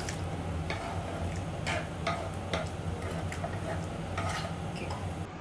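A pot of vegetables cooking in broth spattering and popping: sharp, irregular pops about every half second to a second. A steady low hum runs underneath.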